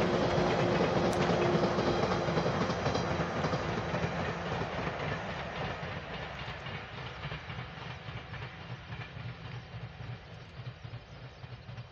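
JR 185 series electric train passing, its wheels clattering rhythmically over the rail joints. The rumble fades steadily as the train draws away into the distance.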